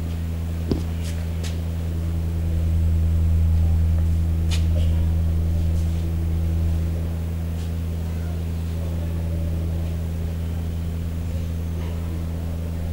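A steady low hum that swells slightly for a few seconds in the middle, with a few faint clicks.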